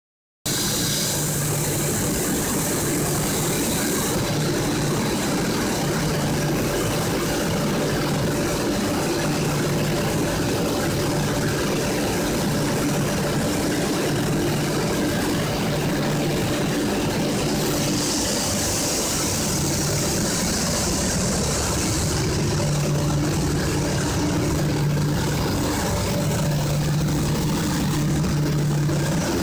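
Automatic spray painting line running: a steady machine hum from the conveyor and booth equipment, with a low drone that swells and fades every second or two. A hiss rises for a few seconds past the middle.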